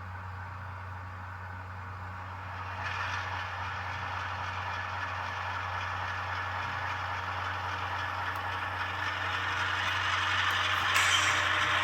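Sound decoder of an H0-scale ES44AC model locomotive playing its diesel prime mover running sound through the model's small speaker, a steady low hum under a hissy engine noise that grows louder about three seconds in and again near the end.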